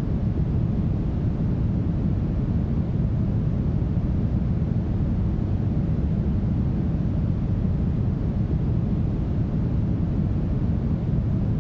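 Steady, smoothed brown noise: an unbroken deep hiss that is heaviest in the low end and thins out toward the top, with no changes over time.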